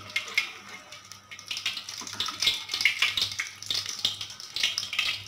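Malpua batter frying in hot desi ghee in a kadhai on low heat: a dense, irregular crackling sizzle, louder from about halfway through.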